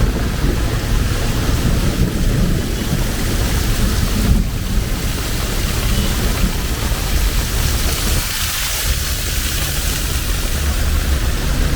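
Heavy rain pouring steadily, an even hiss with a strong low rumble underneath.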